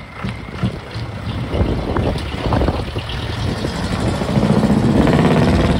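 Small flatbed truck's engine pulling away and accelerating. It grows louder and is loudest near the end as the truck drives close past.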